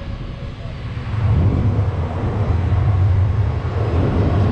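Shinkansen bullet train pulling into the station platform. Its low rumble and rushing noise swell about a second in as the cars come alongside, then hold steady as it slows to stop.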